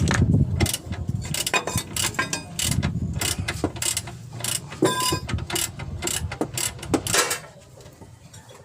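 Metal hand tools working on engine parts during an engine teardown: irregular metallic clicks and clinks, a few ringing briefly. The sound dies down near the end.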